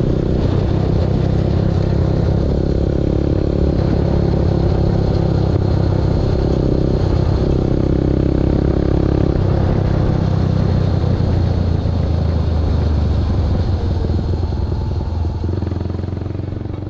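Motorcycle engine running at a steady cruise under wind and road noise, growing quieter over the last few seconds.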